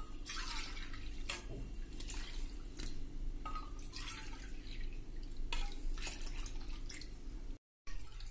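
Buttermilk being poured from a clay pot into a metal measuring cup and tipped into a pan, heard as a series of short liquid splashes and drips over a steady low hum. The sound cuts out briefly near the end.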